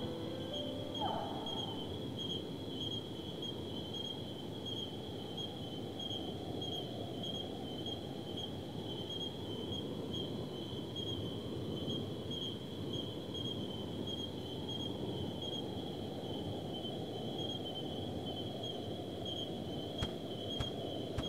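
Insect ambience: a steady, high, finely pulsing trill like crickets, over a low steady rumble. The last notes of music end about a second in.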